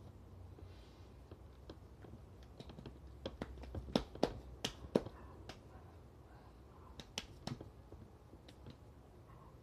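Hands patting and pressing marinated meat slices onto a trompo (vertical spit stack): a scattering of short sharp slaps and clicks, busiest from about three to five seconds in and again around seven seconds in.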